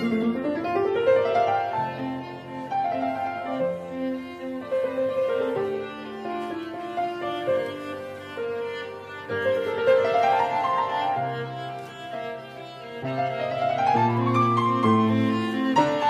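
Background music: bowed strings and piano playing a slow classical-style piece, with a few rising melodic runs.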